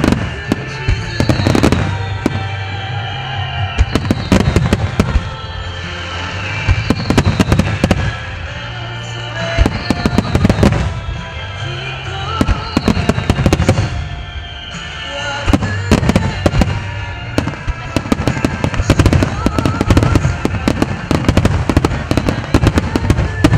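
Starmine fireworks barrage: many shells bursting in quick succession, with sharp bangs and crackling and no pause between volleys. Music plays underneath the bursts.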